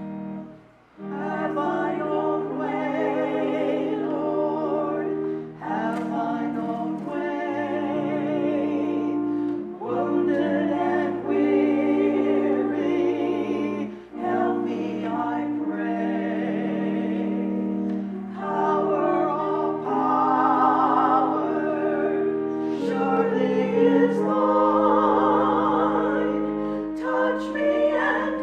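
Voices singing a hymn in slow sung phrases over sustained keyboard chords, with a brief pause about a second in before the singing resumes.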